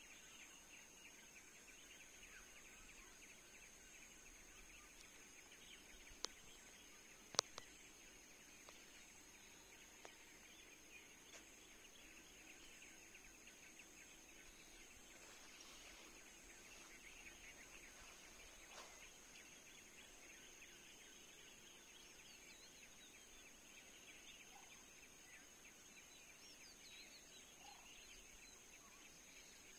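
Quiet forest ambience: a faint, steady, high-pitched chorus of insects. A sharp click comes about six seconds in, and a louder one a second later.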